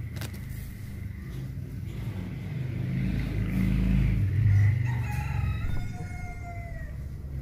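A rooster crows once in the background, one drawn-out call in the second half. Under it runs a low rumbling noise that is loudest about four seconds in.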